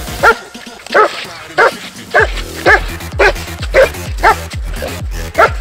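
A large shepherd-type dog barking hard and fast, about ten barks at roughly two a second, as it goes for a man playing the attacker in a protection test.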